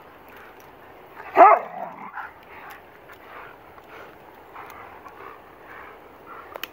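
A dog at rough play over a stick gives one short, loud call with a bending pitch about a second and a half in, followed by fainter sounds.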